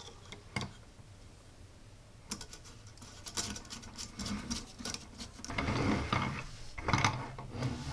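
A small screwdriver fastening a screw and hands handling a metal robot-kit chassis: a single click early on, then a busy run of light clicks, scrapes and rattles of metal parts from about two seconds in, growing louder toward the end.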